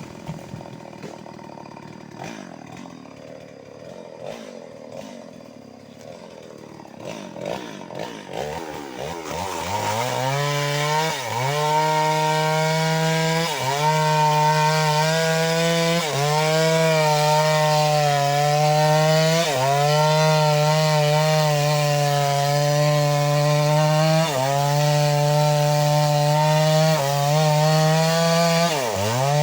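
Stihl MS 381 two-stroke chainsaw idling unevenly for about nine seconds, then revving up to high speed and cutting into wood. Its pitch dips briefly every few seconds as the chain bites under load.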